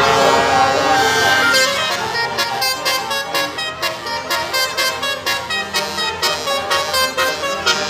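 Bus telolet horn, a set of multi-tone air horns, playing a tune: a held chord at first, then quick staccato notes of changing pitch, about four a second.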